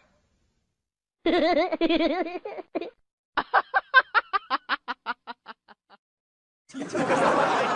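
A person laughing: a wavering vocal sound, then a quick run of 'ha-ha' pulses, about six a second, that fades away. Near the end a short burst of noise starts.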